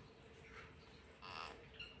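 Faint, short squeak from a pet parrot a little over a second in, followed by a brief high chirp near the end.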